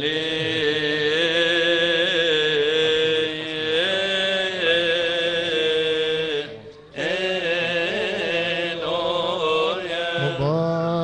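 Coptic Orthodox liturgical chant: a voice sings long, drawn-out melismatic notes with wavering ornaments and a short pause for breath about seven seconds in.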